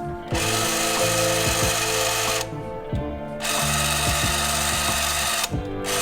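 Comet Super 8 movie camera's electric film-drive motor whirring in two runs of about two seconds each, a second's pause between them, as the trigger is pressed and released. The camera's mechanism is running again after repair.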